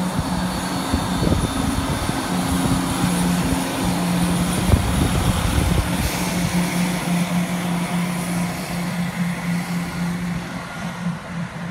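Train running at a railway platform: a steady low hum with a continuous rushing noise over it, and irregular low knocks in the first half.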